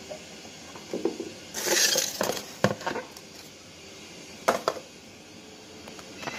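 Cut pieces of corn on the cob being handled in a plastic colander at the kitchen sink: a short rustling burst, then a few sharp knocks and clatters.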